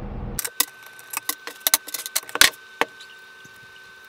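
About a dozen light, irregular clicks and knocks of hard objects being handled, mostly in the first three seconds, with the loudest near the middle. A faint steady tone runs underneath.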